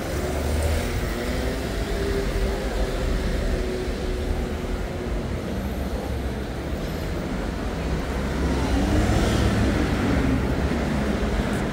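City street traffic: motor vehicles running and passing on the road, with an engine rising and falling in pitch about eight seconds in as a vehicle accelerates by.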